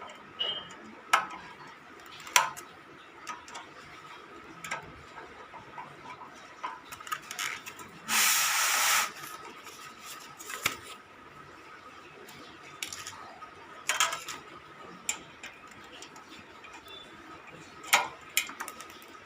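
Scattered sharp clicks and knocks of metal parts and tools being handled while a ceiling fan is assembled, with a loud burst of hiss lasting about a second partway through and a faint steady high tone underneath.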